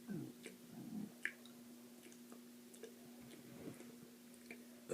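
Faint mouth and throat sounds of a woman gulping air to work up a burp: a few small clicks and swallowing noises over a steady low hum, with a loud burp breaking out right at the end.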